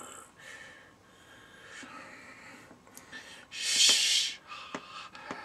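A man's breathy vocal noises: soft breaths, then a loud hissing exhale about four seconds in, with a few light clicks.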